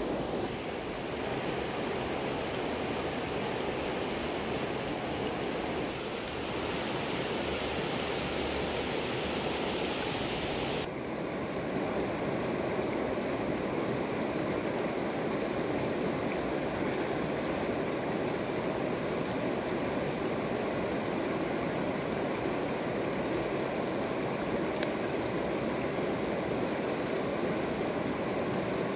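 Shallow, stony river flowing steadily: a constant rush of water. About eleven seconds in the sound changes, its high hiss falling away.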